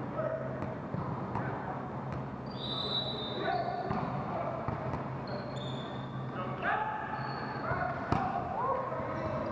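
Athletic shoes squeaking in short bursts on a hardwood gym floor during a volleyball rally, with a sharp smack of the ball being hit about eight seconds in.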